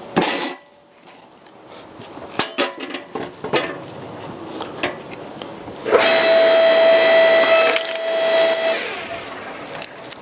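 Electric log splitter (Yardmax YS0552) at work. Split firewood is knocked and set down on the beam. About six seconds in, the motor and hydraulic pump start with a loud steady whine as the ram drives a log into the wedge, then cut out just before the log finishes splitting.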